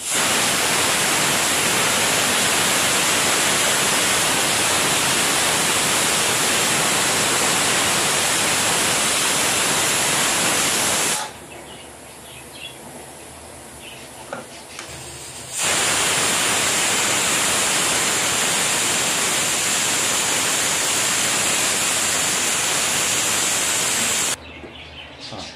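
Aluminium stovetop pressure cooker whistling: steam escaping under the weight valve in two long, steady hissing blasts, the first about eleven seconds and the second about nine, with a few seconds' break between. The whistles are the cooker's signal of full pressure, counted to time the cooking.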